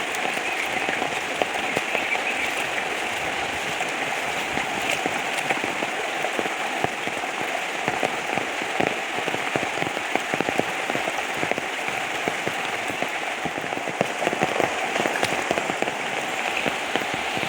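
Heavy monsoon rain falling steadily and without a break, with many individual drops ticking sharply close by.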